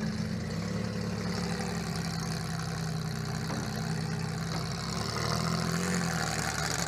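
Welded-up demolition derby car's engine idling steadily, heard from inside its stripped cab, picking up slightly about five seconds in.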